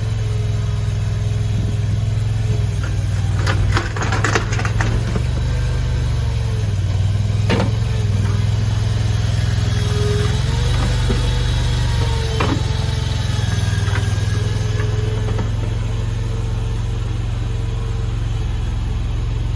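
Mini stand-on skid steer loader's 739cc engine running steadily, with a wavering whine above it. A few sharp knocks: a quick cluster about four seconds in, then two single knocks later on.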